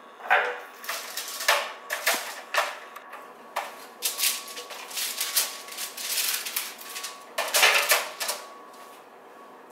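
Irregular crinkling of aluminium foil and clicks of metal tongs on a foil-lined baking sheet as racks of ribs are turned over. The loudest rustle comes near the end.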